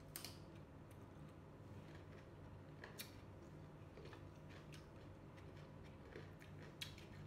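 Faint, scattered crisp clicks of raw carrot sticks being bitten and chewed with the mouth close to the microphone, over a low steady room hum; the clearest crunches come just after the start and about three seconds in.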